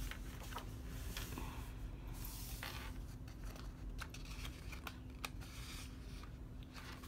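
Pages of a large paperback coloring book being turned by hand: soft paper swishing and rustling, with small ticks as the pages are handled and pressed flat.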